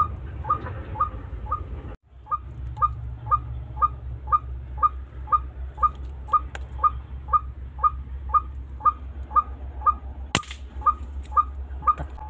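A bird's call: one short falling note repeated evenly, about two to three times a second, over a low rumble of handling noise. A single sharp click sounds about ten seconds in.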